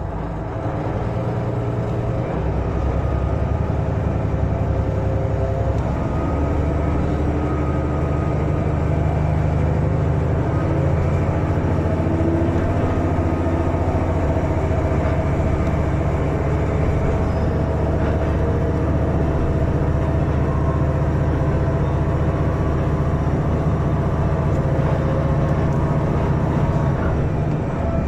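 JR East KiHa 110 diesel railcar pulling away from a station and gathering speed, heard from inside the car. The engine drones steadily over the rumble of the running gear, and its tone climbs as the train accelerates.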